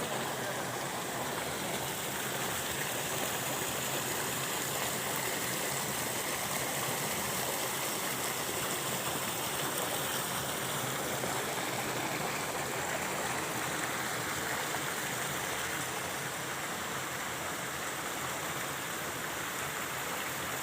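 Steady rushing of flowing water, an even unbroken noise with no rhythm or change.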